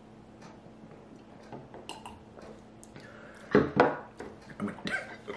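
A few light clicks of glass on the table, then two loud coughs in quick succession about three and a half seconds in, and a few smaller throat sounds after: a reaction to a shot of liquor just downed.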